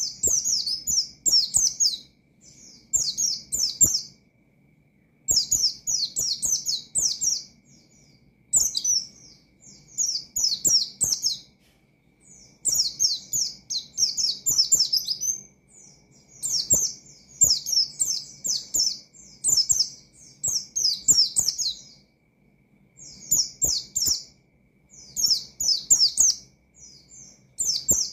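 White-eye (pleci) singing a fast, high chattering song in bursts of a second or two with short pauses between, repeated over and over.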